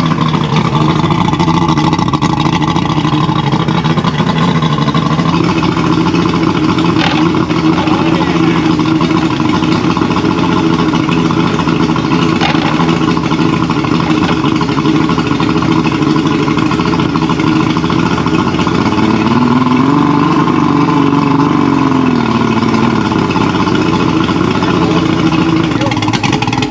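Yamaha outboard motor running steadily on its first run after sitting 18 years, fed water through flush muffs. About two-thirds of the way through it revs up and settles back down, and there are a couple of sharp clicks earlier on.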